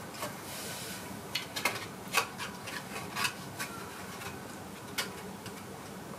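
Playing cards being handled and set onto a house of cards: a scatter of light clicks and rubs between about one and four seconds in, and one last sharp click at about five seconds.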